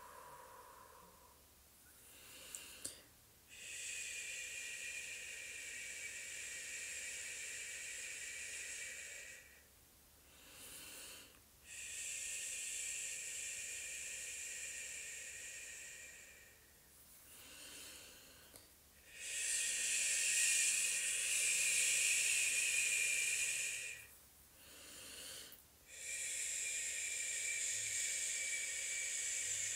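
A woman breathing slowly and deeply close to the microphone: four long hissing exhales through pursed lips, each about five seconds, with short inhales between.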